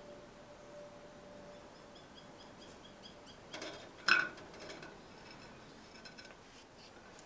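A faint steady tone dies away in the first two seconds, then a quick run of faint high chirps. About four seconds in come a light knock and then a sharp clink, the loudest sound, followed by a few faint ticks.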